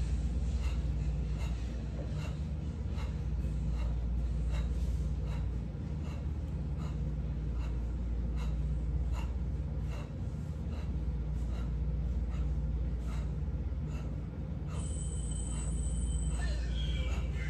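Sharp, rhythmic exhalations, about two a second, as a person breathes out with each punch of continuous jab-cross combinations, over a steady low hum.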